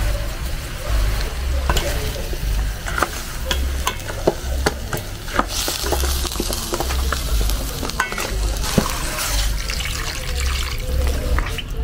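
Pork pieces sizzling in a hot stainless steel pot while a plastic spoon stirs them, with many sharp knocks of the spoon against the pot. Near the end, water is poured in.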